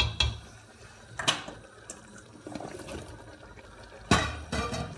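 Diced bell peppers tipped into a stainless steel pot of chicken simmering in broth: the broth splashes and bubbles, with short knocks against the pot. The loudest burst comes a little after four seconds in.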